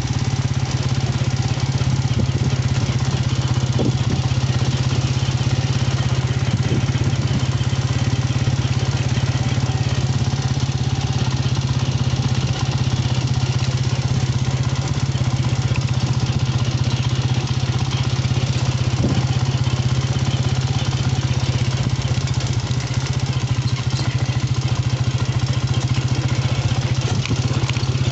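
Motorcycle engine running steadily at an even speed, a constant low drone that does not change in pitch.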